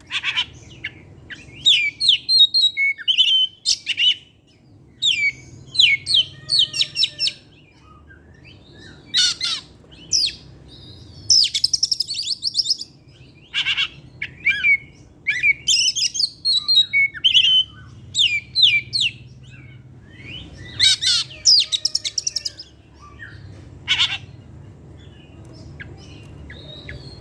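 Oriental magpie-robin (kacer) singing continuously in short bursts of varied high chirps and trills, bringing out its learned song material. A low steady hum runs beneath.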